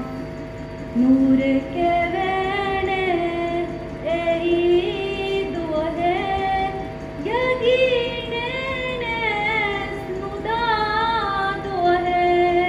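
Female singer singing solo into a microphone, in phrases of long held, gently bending notes with short breaths between them, over a faint steady tone.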